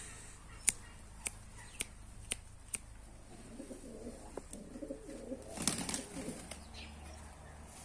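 A flock of domestic pigeons cooing on the ground. Five sharp clicks, about two a second, come in the first three seconds. A short, louder rustling burst comes near the sixth second.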